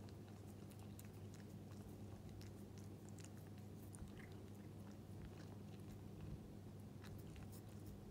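Near silence: a low steady hum with faint scattered ticks and rustles as a hand rubs a British Shorthair cat's cheek fur.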